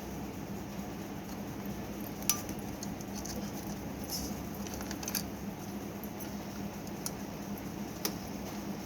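Scattered light clicks and taps from handling an electric fan's parts, over a steady low hum.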